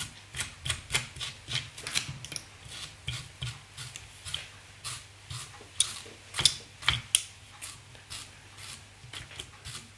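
Velcro brush raked hard, over and over, through the dubbing-brush fibres of a streamer fly to pick them out: a quick run of short scratchy strokes, about two or three a second.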